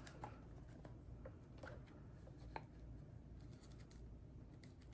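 Near silence: room tone with a few faint, scattered clicks and taps of kit items being handled.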